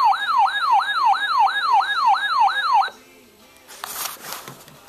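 Weather alert radio's alarm siren sounding for a severe thunderstorm watch: a loud pitch that sweeps down over and over, about three sweeps a second, then cuts off just under three seconds in. A short burst of hiss follows about a second later.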